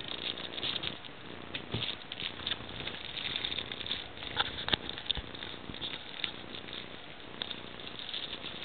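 Coton de Tulear puppies play-wrestling on a blanket: an irregular scrabble of paws and claws scratching and pattering on fabric and the pen floor, with scattered small clicks and knocks.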